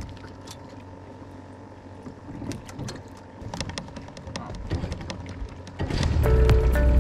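Small boat's motor humming steadily, with scattered light clicks and knocks. Background music comes in near the end.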